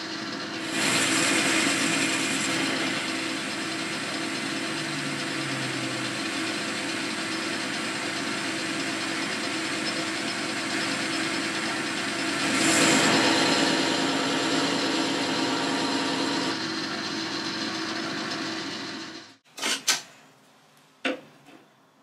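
Boxford metal lathe running with a turning tool cutting the spinning workpiece, taking a light cut of a few thou; the cut gets louder about a second in and again around thirteen seconds. Near the end the lathe is switched off and stops quickly, followed by a few sharp knocks of metal handling.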